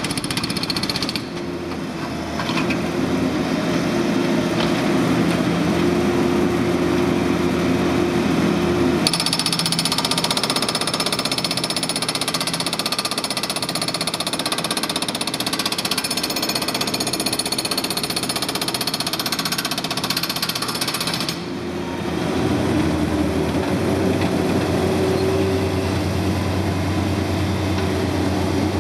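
Hydraulic breaker on a Bobcat MT52 mini track loader hammering and breaking up concrete, over the loader's running engine. The sound changes abruptly a few times, and the engine hum is stronger near the end.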